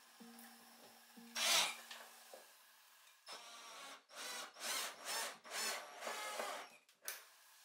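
Cordless drill running briefly with a steady hum as it drives a screw into a pine shelf batten, with a sharp scrape about a second and a half in. Then a run of short rasping wood-on-wood sounds, about two a second.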